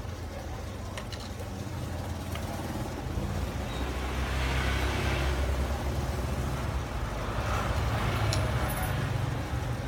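A low rumble that grows louder about a third of the way in and stays up, with a few faint sharp clicks on top.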